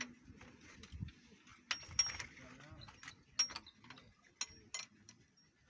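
Sharp metallic clinks and clicks, each with a short ring, from metal gear parts and tools being handled on a tractor gearbox. Several separate strikes a second or so apart.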